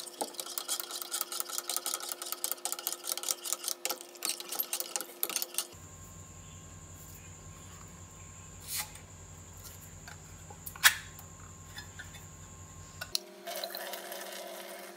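A metal spoon stirring in a glass saucepan, clinking rapidly against the glass for about the first six seconds. Then a quieter stretch with a few sharp clicks, and near the end the liquid from a can of corn pouring out into a stainless steel sink.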